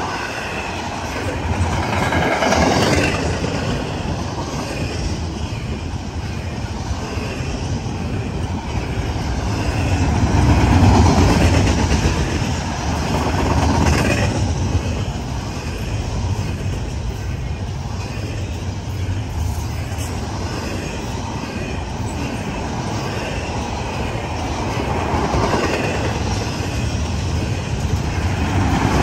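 Double-stack intermodal well cars rolling past close by: a steady rumble of steel wheels on rail with some clickety-clack. It swells louder several times as trucks pass.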